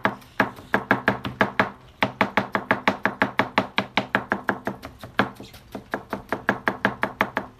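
Kitchen knife rapidly chopping diced purple yam on a plastic cutting board, mincing it fine: a steady run of sharp knocks at about five or six a second, with two brief pauses.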